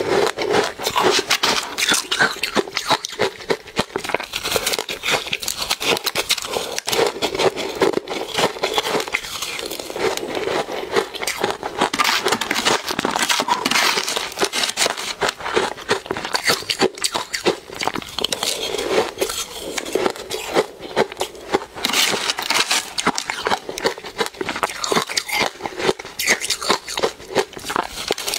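Close-up crunching and chewing of matcha-powdered ice, a dense crackle of many small crunches with no pause, broken by a metal spoon scraping ice in a plastic tub.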